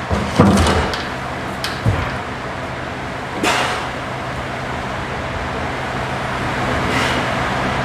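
Gymnast working on wooden parallel bars: a loud thump as he jumps up onto the bars, a couple of lighter knocks, and two swishes as he swings, over a steady low hum.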